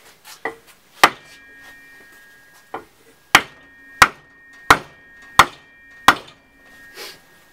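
Hammer blows through a wooden block onto the end of a Holden Commodore tailshaft, driving a new centre bearing onto the splined shaft because it will not go on by hand. About eight sharp strikes, the last five coming evenly about two-thirds of a second apart, and each blow leaves the steel shaft ringing briefly.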